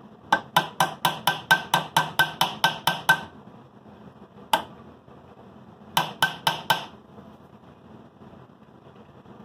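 Small ball-peen hammer tapping a metal motor clip held in a steel bench vise, flattening it. It goes in a fast run of about fifteen sharp taps, roughly five a second, then one lone tap, then a quick burst of five.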